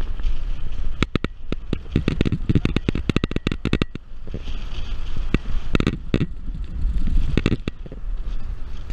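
Car driving slowly, heard through a camera mounted on its bonnet: a low rumble of wind and road noise, broken by a dense run of rapid crackling clicks from about a second in, and by two shorter clusters of clicks later on.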